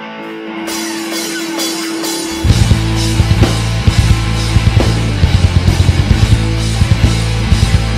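Live rock band playing: an electric guitar holds a note, then about two and a half seconds in the drums and bass guitar come in hard, with rapid drum hits driving a heavy full-band section.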